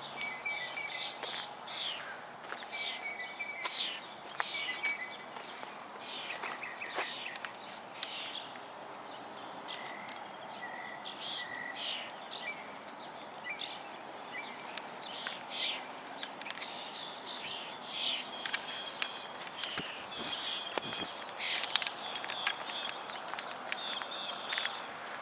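Birds chirping: many short, high calls come one after another, thicker toward the end, over a steady hiss of outdoor background noise.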